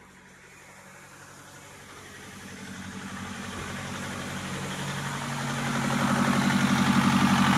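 Chevrolet Captiva diesel engine idling with an even pulse, growing steadily louder. It is running again after a no-start blamed on low compression from carbon lodged under the valves.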